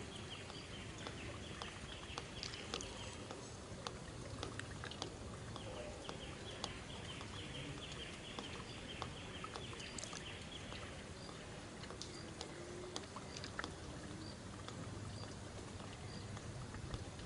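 Forest ambience: a fast, dry, high trill of evenly repeated notes runs for about three seconds, stops briefly, then runs again for about six seconds, over scattered faint clicks.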